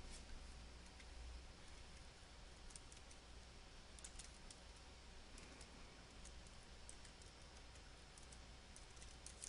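Faint, irregular keystrokes on a computer keyboard: a short name being typed slowly, a few separate clicks every second or so.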